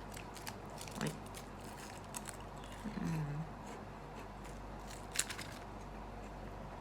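A few faint, sharp clicks and crackles from a chocolate bar being handled and bitten, with a brief cluster about five seconds in.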